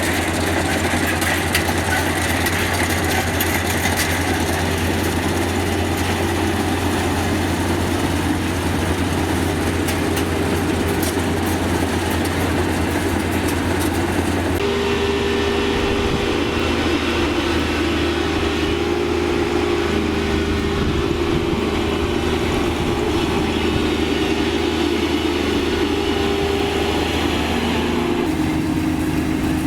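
Diesel engine of a Kubota DC-35 combine rice harvester running steadily. About halfway through, its note changes abruptly and the hiss above it drops away.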